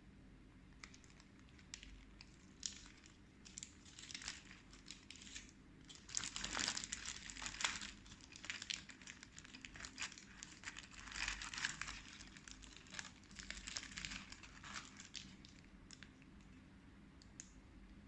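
Paper food wrapping being handled and crumpled, in irregular crinkles. It is busiest from about six to eight seconds in, and again from ten to fifteen seconds.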